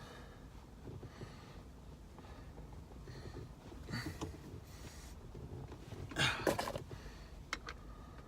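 Faint handling noise of plastic shift boot and sleeve parts being fitted onto a Jeep Wrangler JK's shifter: scattered rustles and small clicks. The loudest is a short rustle about six seconds in, and a couple of sharp clicks follow near the end.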